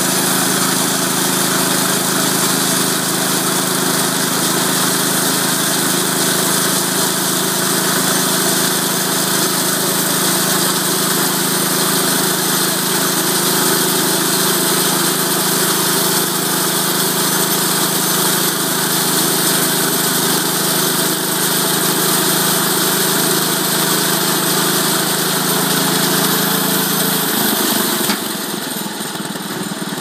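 Portable band sawmill's engine running steadily at speed while the band blade saws a slab off a log; about two seconds before the end the sound drops and becomes quieter as the cut finishes.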